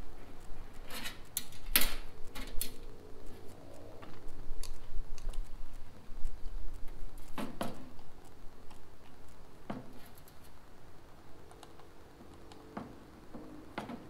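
Plastic electronic accelerator pedal assembly of a 2005-2006 Pontiac GTO being handled and fitted back together by hand: scattered sharp clicks and knocks, the loudest about two seconds in.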